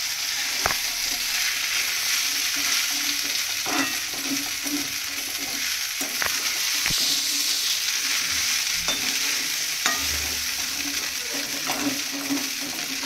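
Poha frying in a small kadai on a gas burner with a steady sizzle, while a metal spoon stirs and scrapes through the flattened rice. The spoon clicks sharply against the pan several times.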